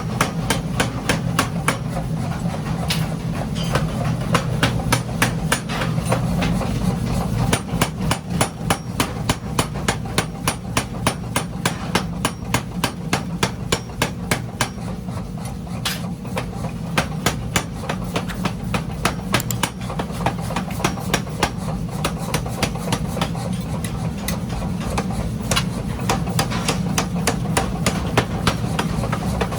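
Rapid, regular hammer blows on railroad-rail steel being forged into a pickaxe head, about three to four strikes a second, over a steady low machine hum.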